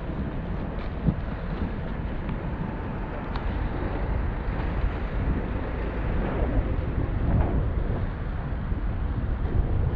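Steady wind buffeting the microphone of a moving camera, with a low rumble underneath and a single sharp knock about a second in.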